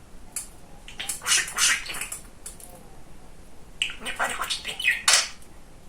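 Budgerigar chattering in quick, high, squeaky runs: one about a second in and a second, louder one from about four seconds in.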